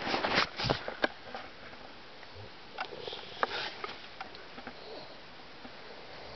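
A man snoring in his sleep, with noisy, sniff-like breaths. A quick run of sharp clicks and rustling comes in the first second.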